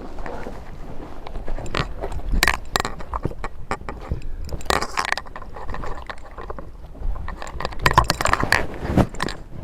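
Close, irregular rustling, scraping and knocking of an airsoft player moving: gear, clothing and foliage brushing against each other, with uneven clicks and knocks throughout.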